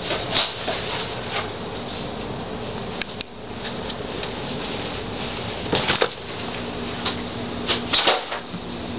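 A cat scampering and pouncing on carpet during play: short bursts of scuffling and light thumps, loudest at the start and near the end.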